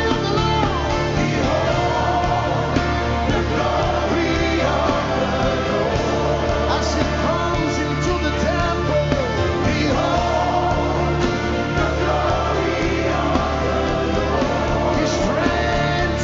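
Live gospel worship music: voices singing together over a band with a steady, sustained bass.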